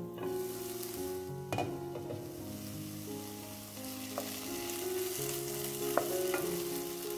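Button mushrooms and onions sizzling in butter in a nonstick frying pan, stirred with a wooden spatula. The sizzle comes up as the glass lid is lifted at the start, and there are a few sharp knocks of the spatula against the pan.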